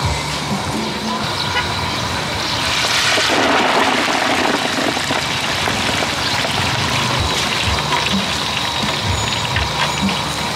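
Hot oil sizzling and bubbling in a large pot as food deep-fries. The sizzle surges louder for a couple of seconds about three seconds in, as leafy greens and carrots go into the oil.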